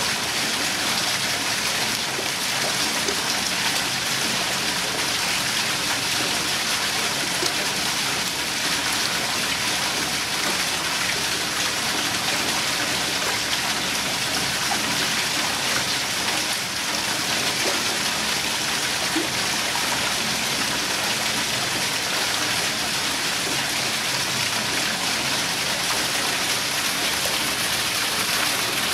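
Small waterfall pouring from an outlet into a pool, a steady, unbroken rush of falling water.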